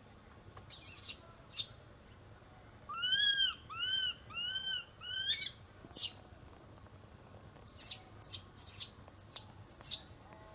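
Macaque calls: a series of shrill, high-pitched cries, with four arching squeals in a row in the middle and a quick run of five short cries near the end.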